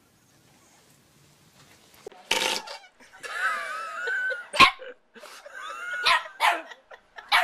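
A dog barking and yipping in short bursts, with a drawn-out, wavering call between about three and four seconds in.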